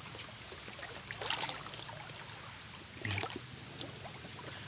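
Water splashing and trickling as someone works in shallow floodwater. There is a sharp loud crack about a second and a half in, and a brief voice sound about three seconds in.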